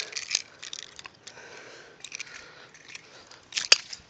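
An old plastic pager thrown hard and hitting the ground with a sharp crack near the end, with small clicks and rattles of handling before it.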